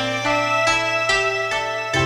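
Instrumental background music: a quick run of short, ringing notes over a held bass note.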